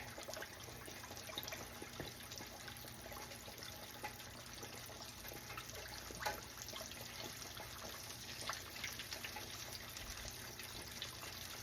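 Battered pork chop deep-frying in hot grease: a faint, steady sizzle with scattered small pops, one a little louder about six seconds in.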